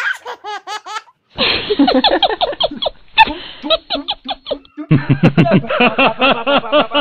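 A man's voice in rapid, rhythmic repeated syllables, laughter-like. It breaks off briefly about a second in, then comes back louder.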